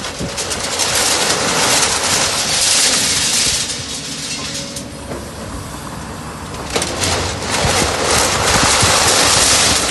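Excavator-mounted hydraulic breaker hammering concrete under water, a rapid hammering with water churning and splashing over a running diesel engine. The hammering eases for a couple of seconds around the middle while the breaker is lifted, then starts again about seven seconds in.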